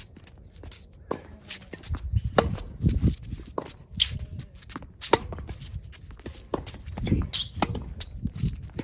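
Tennis rally: sharp pops of racket strings striking the ball and the ball bouncing on a hard court, about one every second or so. Between them come the player's footsteps, low thuds and squeaks of shoes shuffling on the court surface.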